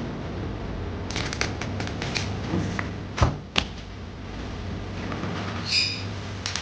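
Kitchen food-preparation noises: scattered clicks and knocks of utensils and containers over a steady low hum, with a brief high chirp near the end.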